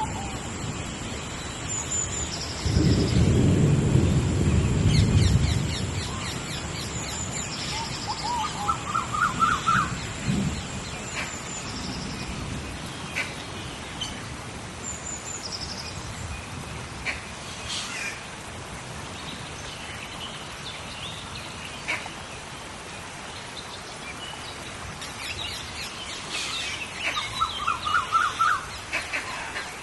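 Rain storm in a tropical rainforest: steady rain, with a rumble of thunder about three seconds in that lasts a few seconds. Birds call over the rain, with short runs of quick repeated notes near the middle and again near the end.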